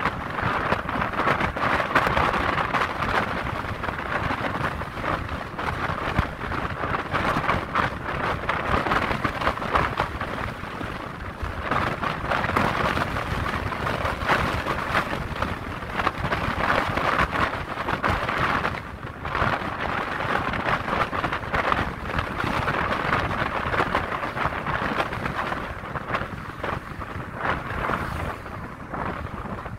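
Wind rushing and buffeting the microphone inside a moving car, a dense noise that surges and drops gust by gust and eases a little near the end.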